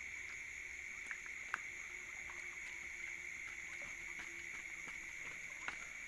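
Steady high-pitched drone of night insects, with a few faint clicks, the sharpest about a second and a half in.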